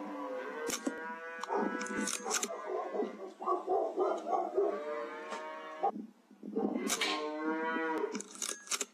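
Cattle mooing in long calls one after another, with a short pause about six seconds in. A few sharp clicks sound among the calls.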